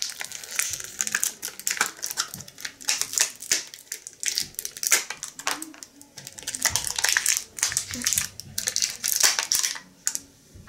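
Clear plastic toy packaging crinkling and crackling in the hands as small figurines are worked out of it, in quick, irregular crackles.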